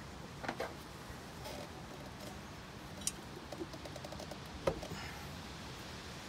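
Faint, scattered clicks and light knocks of hand tools and metal parts being handled on a sterndrive. The sharpest click comes about three seconds in and a heavier knock a little before five seconds.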